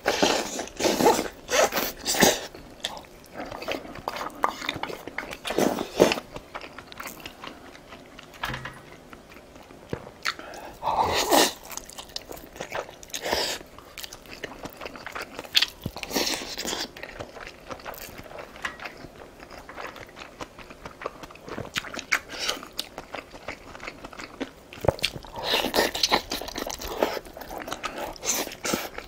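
Close-miked eating: wet chewing and crunching of big dumplings and green onion kimchi, coming in repeated bursts, with a louder slurp from a bowl at the start.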